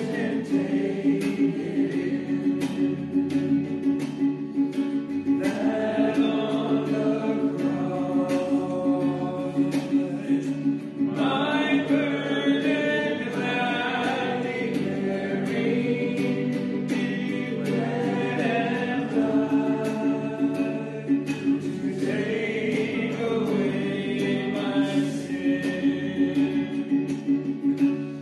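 A group of voices singing a hymn, over a long-held accompanying tone.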